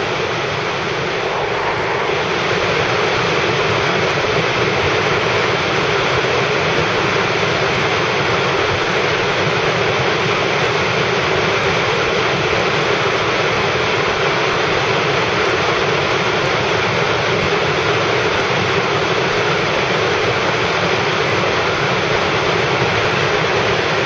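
Car cruising along a highway: steady rushing tyre and wind noise, with no engine pitch standing out.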